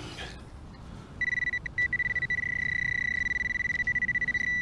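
Metal detector sounding its target tone over a buried find: a steady high-pitched beep with a fast flutter. It starts just over a second in and stops shortly before the end.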